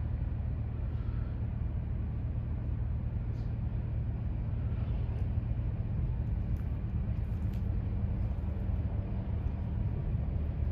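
An engine running steadily at idle, a continuous low hum.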